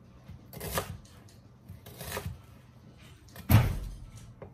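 Kitchen knife cutting through a peeled onion onto a plastic cutting board: three cuts about a second and a half apart, the last one the loudest, landing with a heavy thud.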